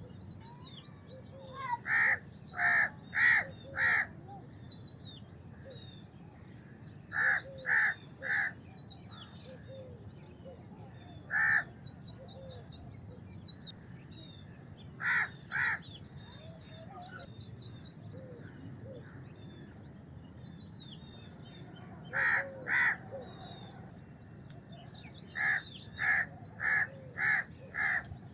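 House crows cawing in groups of one to five caws, with pauses of a few seconds between groups, over the constant twittering of smaller birds.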